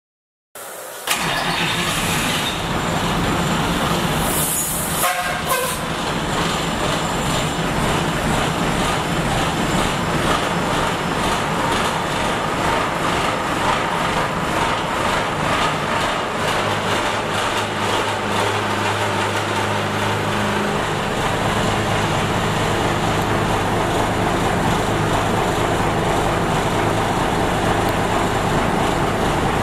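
1988 International S1854 fire brush truck's engine running steadily, starting abruptly about a second in. There is a brief hiss about four seconds in, and a deeper steady hum comes in around seventeen seconds.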